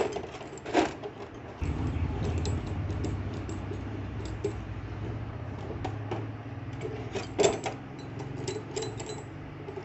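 Metal clinks and taps of a valve spring compressor being set over a valve spring on a 125 cc motorcycle cylinder head to seat the valve collets. There is a louder clink just under a second in and another about seven and a half seconds in. Underneath, a steady low mechanical hum starts about a second and a half in.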